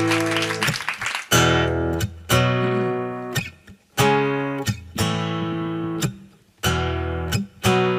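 Acoustic guitar playing slow chords for a ballad intro, each chord struck and left to ring out, with short pauses between them. Applause dies away in the first second or so.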